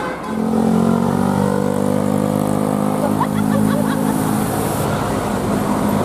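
Large coach's diesel engine running loud and steady as the bus passes close by: a low hum with overtones that sets in just after the start.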